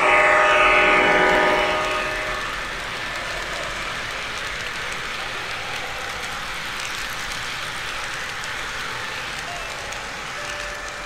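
O scale model ES44AC diesel locomotive's onboard sound system sounds its horn, a multi-note chord for about two seconds, as it passes close by. The following cars then roll past on the track with a steady rumble.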